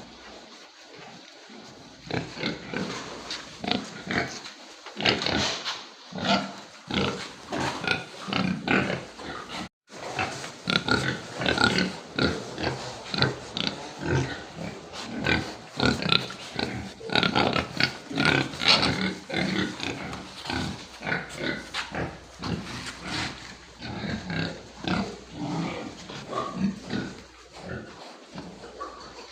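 Pigs grunting in quick, overlapping calls, with a momentary break about ten seconds in.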